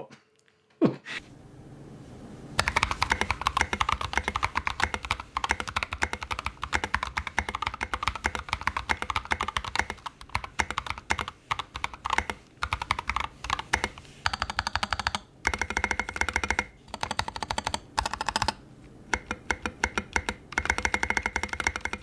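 Typing on an NK65 Entry Edition mechanical keyboard with a dyed polycarbonate case, lightly lubed switches with 68 g springs and double-shot PBT keycaps, on a desk pad. The keystrokes come fast and uneven in bursts with short pauses, starting about two and a half seconds in, over a faint steady fan noise.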